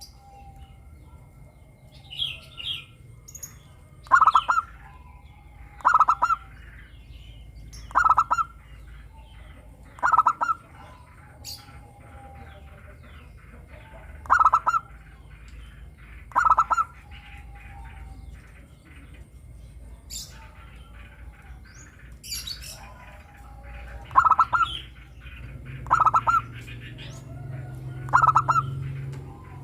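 Zebra dove (perkutut) singing: short bursts of rapid cooing notes, repeated about every two seconds, with a pause of several seconds in the middle. Fainter, higher chirps from other small birds come between the calls.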